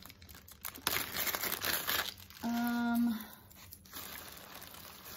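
Thin plastic zip-top bag being pulled open and crinkled by hand.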